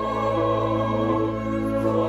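A church choir singing a slow anthem with instrumental accompaniment, in long sustained chords.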